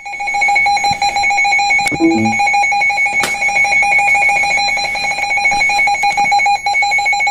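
Emergency alert attention tone: a loud, steady electronic alarm tone with a rapid flutter, signalling that an emergency weather bulletin is about to be broadcast.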